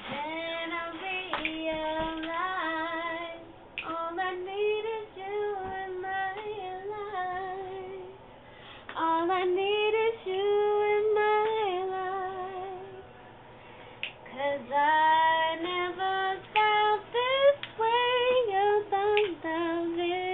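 A woman singing unaccompanied, in melodic phrases with two short breaks, heard through a phone's microphone.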